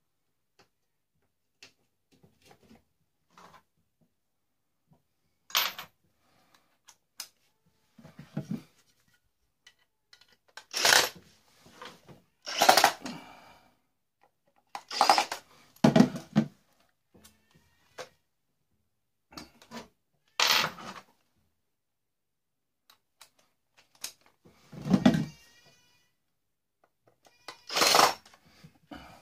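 Clothes iron being dismantled by hand: a string of separate clunks, scrapes and rattles of its metal and plastic parts, about ten louder ones with quiet gaps and small clicks between.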